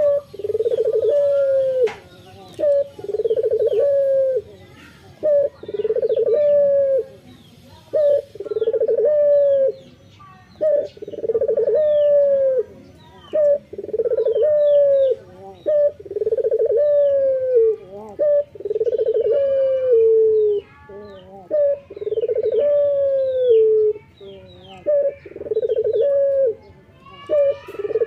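Male ringneck dove (local puter) cooing over and over: low calls about a second long that fall in pitch at the end, about one every second and a half, some led by a short note. Faint chirping of small birds in the background.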